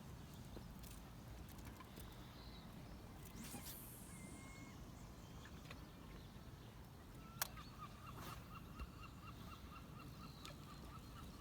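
Faint lakeside outdoor ambience: a low wind-like rumble with a few light clicks, and birds calling. In the second half one bird gives a quick run of short repeated notes, about five a second.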